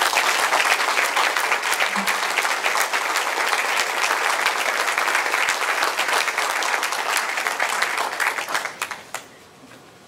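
Audience applauding, a steady clatter of many hands clapping that dies away about nine seconds in.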